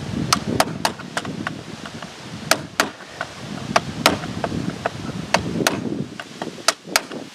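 Sharp metal clicks of a screwdriver tip tapping the retaining clip down onto the centre post of a leaf blower's recoil starter, about a dozen taps at irregular spacing, often in quick pairs.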